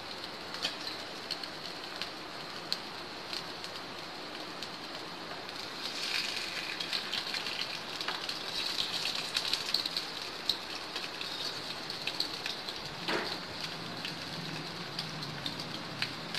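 Aloo tikkis shallow-frying in hot oil in a non-stick pan, a steady sizzle with fine crackling. A metal spatula scrapes and pushes the patties around midway, and there is a single knock about three-quarters of the way through.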